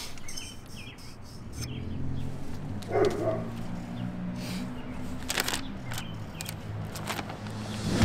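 Outdoor ambience: small birds chirping, with a low steady hum through most of it and a few sharp clicks or knocks, the loudest about five seconds in.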